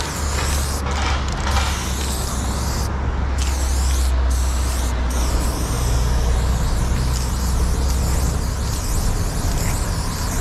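Aerosol spray paint can hissing as it lays down a line, in long strokes with a few short breaks in the first half, over a steady low rumble.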